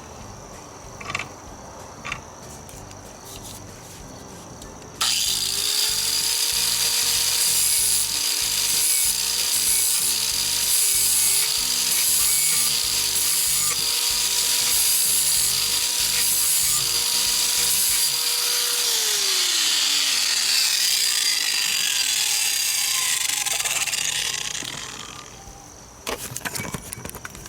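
Electric grinding stone sharpening a steel lawn mower blade edge, with a light feathering pass. A few clicks come first. About five seconds in a loud grinding hiss starts over a steady motor whine, and about fourteen seconds later the whine falls away as the motor winds down. The grinding hiss fades out a few seconds after that.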